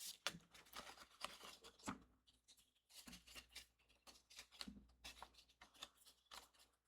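Faint, irregular rustling and light taps of cardstock and paper pieces being handled on a work surface.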